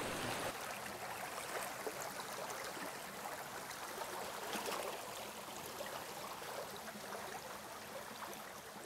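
Running water of a stream, a steady hiss that slowly grows fainter.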